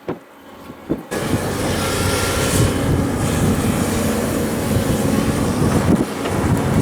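Heavy diesel construction machinery running, a steady low engine hum under loud noise; it cuts in suddenly about a second in, after a quieter stretch with a few clicks.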